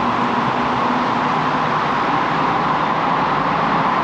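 Steady road-traffic noise in a tunnel, quite loud and continuous.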